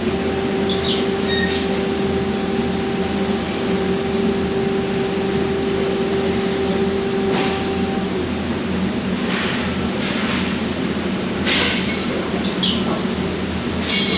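Steady industrial machinery noise from a robotic press brake cell at work. A steady hum runs for about the first eight seconds and then stops, and a few short metallic clinks and squeaks come through the noise.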